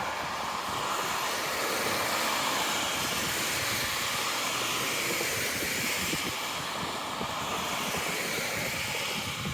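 Steady hiss of road traffic going by, without a clear start or stop.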